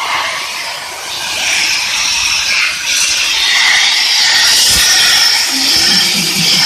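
Abrasive blasting nozzle of a portable sandblasting machine blasting with compressed air: a loud, steady high hiss. A low hum joins near the end.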